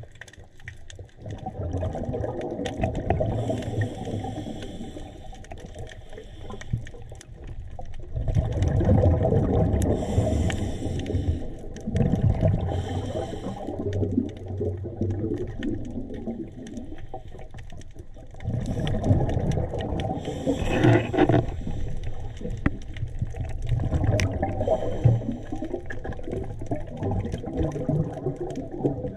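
Underwater bubbling and rumbling from a scuba diver's exhaled breath, swelling in repeated bursts a few seconds apart.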